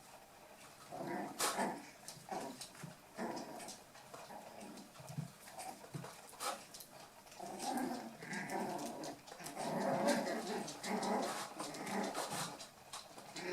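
Eight-week-old toy poodle puppies at play, vocalising in short, irregular bursts, with a few sharp clicks among them.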